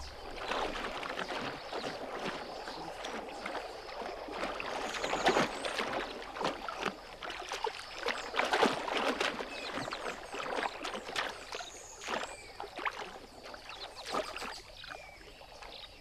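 Water splashing and churning in irregular bursts as crocodiles thrash in a shallow pool. The splashing dies away near the end.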